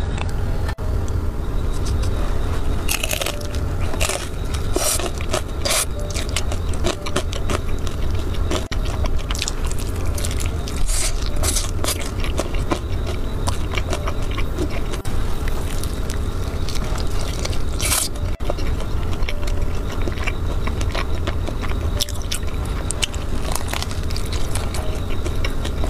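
Close-miked eating of a cheese-dipped fried chicken drumstick: repeated crisp crunches and crackles of the breaded skin as it is bitten and chewed, with wet mouth sounds. A steady low hum runs underneath.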